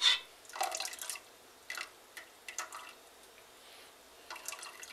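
Cabbage cooking liquid dripping and splashing back into a pot as a small strainer is dipped in and lifted out with leftover shredded red cabbage, in several short, irregular bursts.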